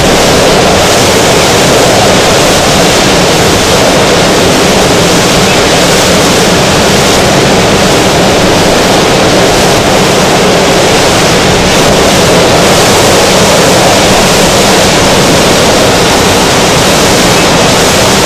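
Hurricane-force wind blowing loudly and steadily, with the gusts buffeting the microphone.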